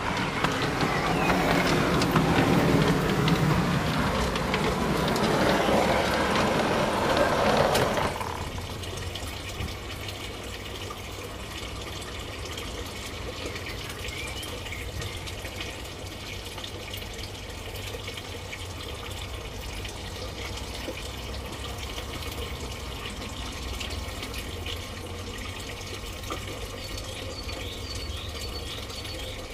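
Garden-scale model train running along its track, heard as a steady rushing rumble from a camera riding on it. It cuts off abruptly about eight seconds in, leaving a quieter steady background hiss with a few faint high chirps near the end.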